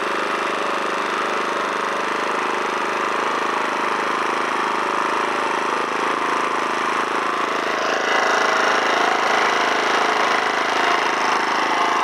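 Alton AT04141 gasoline generator's engine running steadily under its own power, freshly repaired, without rattling: the motor runs all right. It gets a little louder about eight seconds in.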